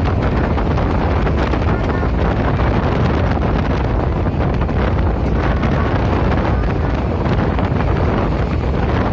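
Steady rumble and rushing noise of a moving train, with wind buffeting the microphone.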